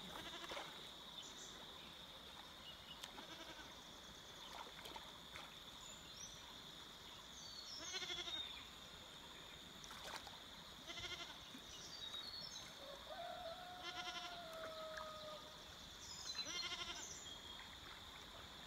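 Faint animal calls, each a short quavering cry, repeating every two to three seconds over a steady high-pitched whine.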